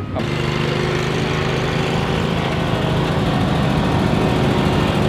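Commercial ride-on lawn mower engine running steadily.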